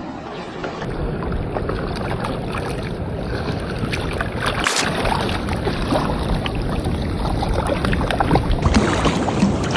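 Wind and water rushing around a small boat at sea, with scattered short sharp noises; it grows a little louder toward the end.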